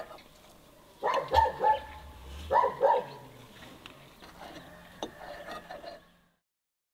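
A dog barking in two short runs of two or three barks, about a second apart.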